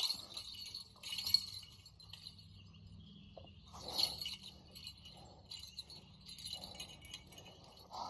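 Shallow creek water trickling and babbling over rocks, a tinkling, uneven splashing that swells and fades, loudest about four seconds in.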